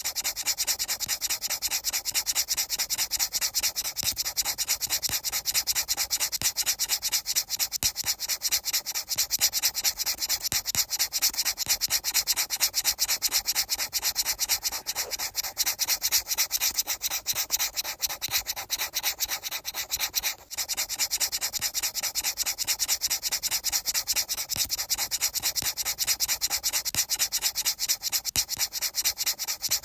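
Fast, evenly repeated rubbing strokes with a hissy, scratchy sound and a brief break about twenty seconds in.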